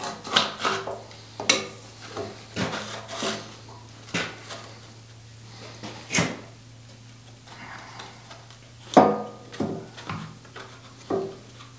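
Plastic slide pieces cut from cutting board knocking and scraping against the steel guide rails of a forge press as they are fitted by hand: a string of irregular clunks and clicks. A steady low hum runs underneath.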